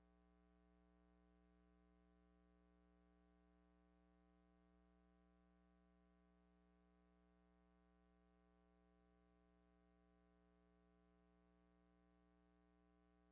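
Near silence: only a faint, steady electrical hum, with no sound from the pictured scene.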